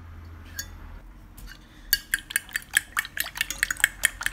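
Metal fork beating raw eggs in a ceramic plate, its tines clinking rapidly against the plate at about seven strikes a second from about two seconds in, after a single tap before that.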